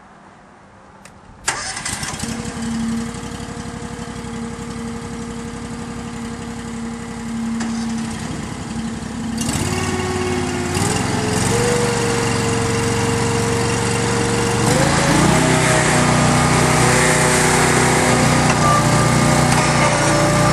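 Small engines of compressed earth block machines starting up and running. The first catches suddenly about a second and a half in, a second engine joins about nine seconds later, and the pitch steps up twice as they speed up.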